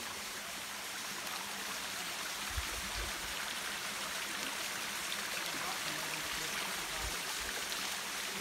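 Small rocky forest stream trickling and splashing over stones, a steady rushing sound.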